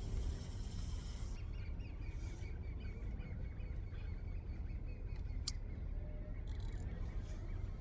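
Wind rumbling on the microphone, with runs of quick high chirps over it and a single sharp click about halfway through.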